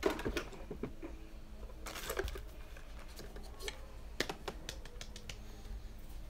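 Light clicks and short rattles of small makeup items being handled and set down, with a denser patch about two seconds in and a few sharper single clicks around four seconds.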